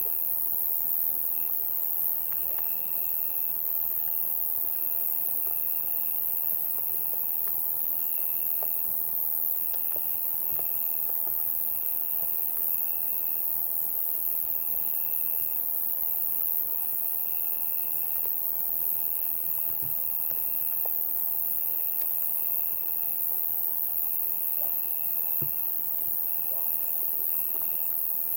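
Summer night insect chorus: a steady, very high-pitched buzz with a cricket trill over it, the trill coming in runs of about a second with short breaks between.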